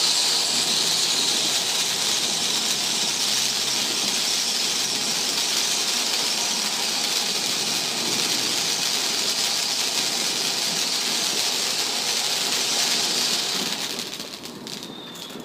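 A firework spraying sparks with a steady, loud hiss that burns for about fourteen seconds, then dies away near the end.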